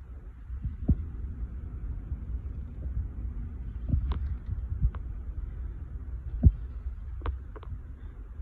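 A low, uneven rumble with a handful of sharp clicks and knocks scattered through it.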